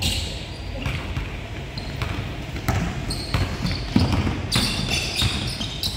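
Basketball being dribbled on a hardwood gym floor: a string of sharp, irregular bounces about every half second to a second.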